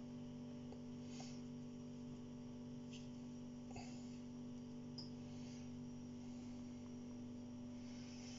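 Quiet kitchen room tone with a steady low hum, and a few faint soft clicks and rustles from fingers crumbling saffron threads out of a small plastic box.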